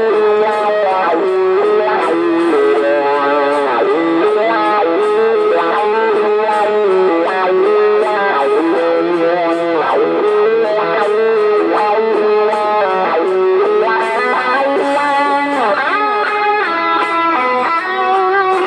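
Electric guitar played through a pedalboard and a small amplifier, picking a continuous lead melody with wavering, bent notes.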